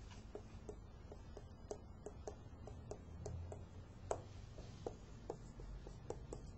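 Faint short clicks and taps, about three a second, with one louder tap about four seconds in: writing on a classroom board.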